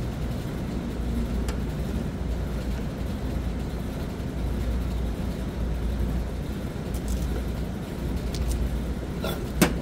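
Screwdriver and wire being worked into the terminals of a motor starter: a few faint clicks, then two sharp clicks near the end, over a steady low rumble.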